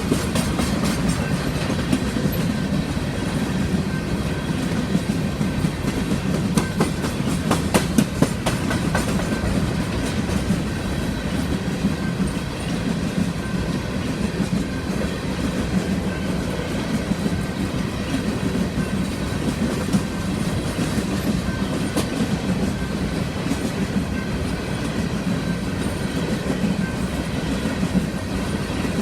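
Union Pacific empty coal train rolling past: a steady rumble of freight cars, with the wheels clacking over rail joints in quick clusters.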